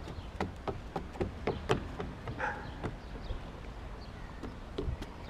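Irregular footsteps knocking on wooden planks, several a second, over a low rumble of wind on the microphone.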